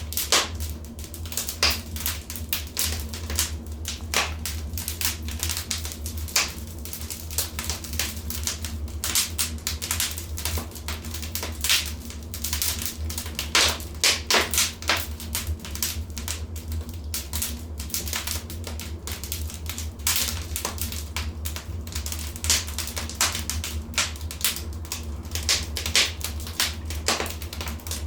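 Wood fire in a fireplace crackling: irregular sharp pops and snaps, some louder than others, over a steady low rumble of burning.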